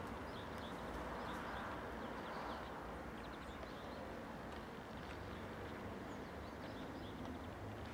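Distant light airplane's engine droning steadily overhead, with many quick high chirps of small birds.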